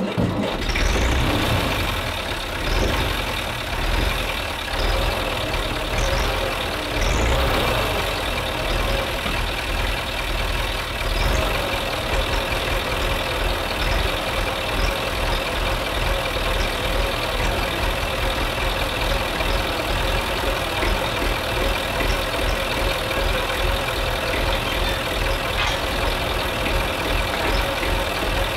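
Tractor engine running at idle, uneven in level over the first dozen seconds and then steady, while it works the rear hydraulic lift that raises the boom.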